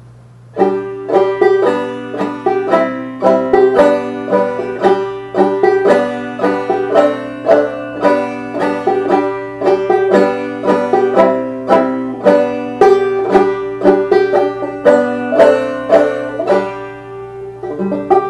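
Gold Tone CB100 open-back five-string banjo played clawhammer (frailing) style with bare fingers, no picks: a steady rhythmic run of plucked notes and brushed strums that starts about half a second in and ends with a note left ringing near the end.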